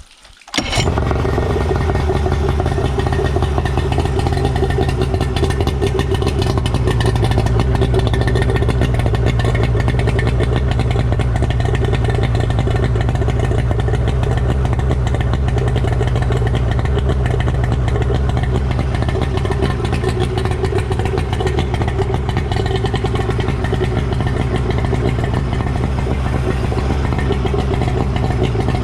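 Suzuki DT65 two-stroke outboard motor starting about half a second in, then running steadily. It runs smoothly on repaired fuel and ignition parts, which the owner calls a fix.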